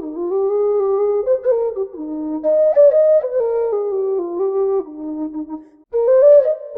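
Setanta metal low E-flat whistle playing a melody in the low octave, one clear breathy tone stepping from note to note, with a short breath break a little before six seconds in.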